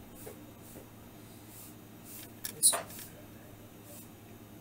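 Faint handling noises of hands working over the bench, with one sharp clack a little over halfway through, over a low steady hum.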